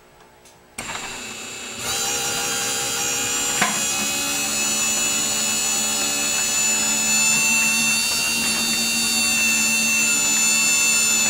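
Genie 1024 garage door opener motor, converted to a side-mounted jackshaft drive, starting about a second in and then running steadily with a constant whine. There is a single click a few seconds in.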